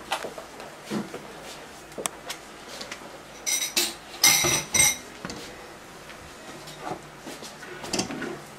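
Light knocks and clinking of glass or metal objects being handled, with two short ringing clinks about three and a half and four and a half seconds in, the loudest of them.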